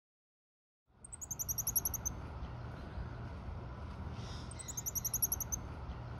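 Goeldi's monkey calling: two quick runs of about ten high-pitched chirping notes each, a little over a second in and again about four and a half seconds in, over steady low background noise.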